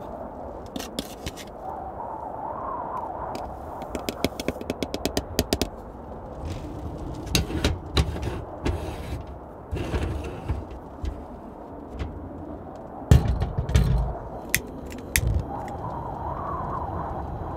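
Coffee being made in an aluminium stovetop moka pot: a spoon scraping and tapping ground coffee into the metal basket in a quick run of ticks, then a few heavier knocks and clicks as the pot is screwed together and set on the gas hob. Under it a steady low rumble of storm wind.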